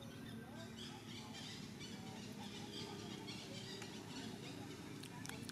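Faint outdoor ambience: scattered short chirping calls over a steady low murmur, with a few sharp clicks near the end.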